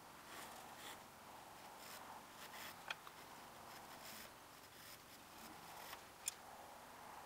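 Faint scratching of a graphite pencil hatching strokes on drawing paper, with two sharp ticks about three and a half seconds apart.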